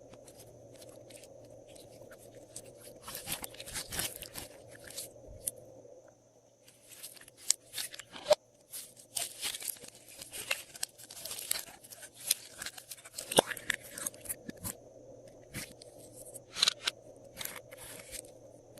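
Glossy slime being squished and stretched by hand, making runs of sticky clicks, pops and crackles that come in irregular bursts, with a few brief pauses. A faint steady hum lies underneath.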